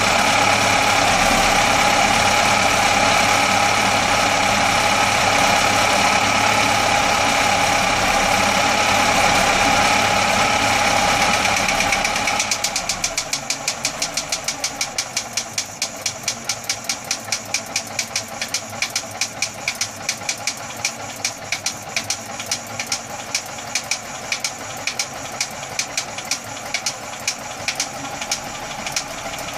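Atomic 4 four-cylinder gasoline inboard marine engine running steadily, then dropping to a quieter idle about twelve seconds in. From then on it pops sharply and regularly, several pops a second.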